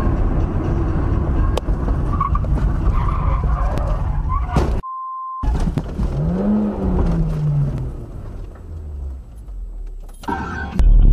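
Car and road noise from dashcam footage. About five seconds in, the noise is broken by a short, steady beep over silence. After that a pitched note rises and then falls, and music begins near the end.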